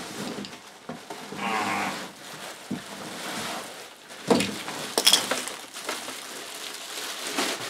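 Cardboard and bubble wrap rustling and crinkling as a bubble-wrapped bench power supply is pulled out of a cardboard box, with a short strained grunt about a second and a half in. Sharp crackles and knocks around four and five seconds in as the wrapped unit is lifted clear.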